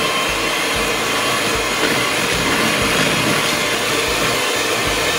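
Electric hand mixer running steadily, its twin beaters whirling through butter and caster sugar in a plastic bowl as they are creamed together.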